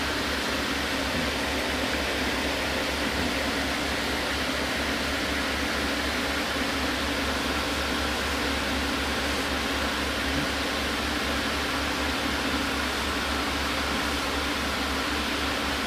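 Aquarium equipment running: a steady low hum under an even hiss, unchanging throughout.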